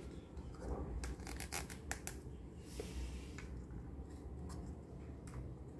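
Small hard-plastic toy cups being pulled apart from a nested stack: a quick run of light plastic clicks, then a short scraping slide of cup against cup, and a couple more single clicks near the end.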